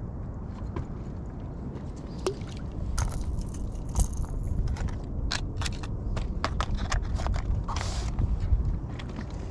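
Low wind rumble on the microphone, with a run of irregular sharp clicks and taps from about three seconds in as a spinning rod and reel are handled, and a short hiss near the end.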